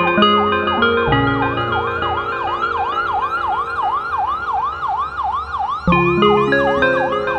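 Electronic music under the credits, with a siren-like wailing tone swooping up and down about three times a second over keyboard chords. The bass line drops out about a second in and comes back near the end.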